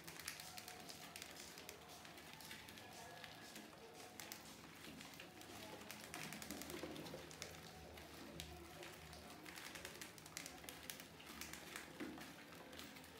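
Faint, irregular clicking and scratching of mice's claws as they shift about on a balloon stretched over a plastic bucket.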